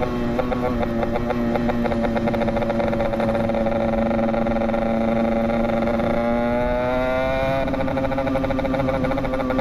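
Yamaha RX-King's two-stroke single-cylinder engine running under way at a steady pitch, then rising as it accelerates from about six seconds in before levelling off.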